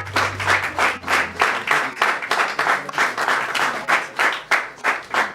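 A church congregation applauding, the claps falling together in a quick beat of about three a second. A low held note fades out in the first second and a half.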